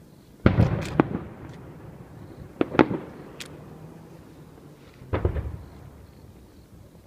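Aerial fireworks shells bursting: sharp bangs in three clusters, about half a second in, near the three-second mark and just past five seconds. Each is followed by a rolling rumble that dies away.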